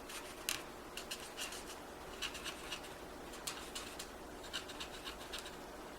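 Stampin' Blends alcohol marker tip stroking and dabbing on cardstock while shading, a faint run of small irregular ticks.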